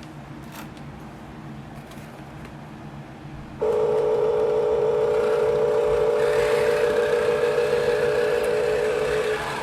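Small electric motor of an RC construction machine whining steadily. It switches on suddenly about a third of the way in and drops off just before the end.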